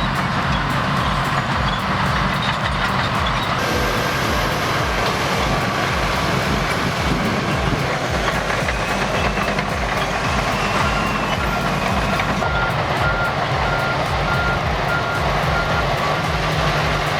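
Heavy earthmoving machinery running under load, with a deep, steady engine rumble. In the last few seconds a reversing alarm beeps in a steady series, about two beeps a second.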